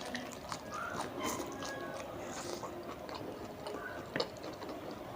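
Close-up chewing and biting of tandoori momos: repeated soft mouth clicks and smacks at an irregular pace.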